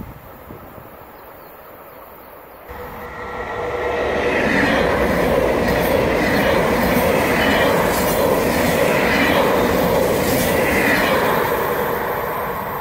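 Italo high-speed electric train passing close by on the rails. The sound is faint at first and steps up about three seconds in. It builds to a loud, steady rush of wheels on the track as the cars go by, then starts fading near the end.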